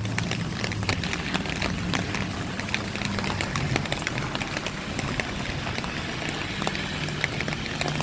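Wet outdoor ambience in the rain: a steady wash of noise scattered with small irregular ticks, over a low engine hum.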